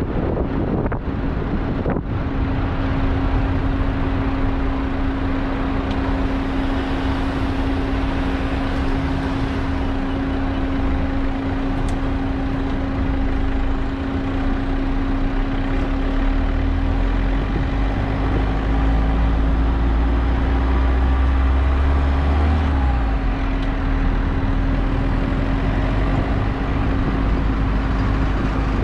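Car travelling at expressway speed: steady tyre and road noise over a low rumble, with a steady hum that sets in about a second in. The rumble swells for a few seconds past the middle.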